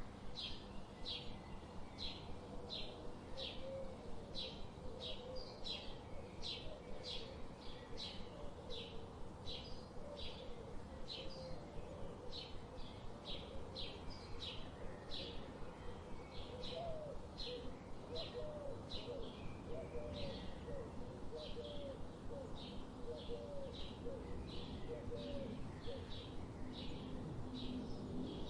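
Birds chirping: a steady series of short, high chirps, about two a second, over fainter lower warbling notes and a constant background hiss.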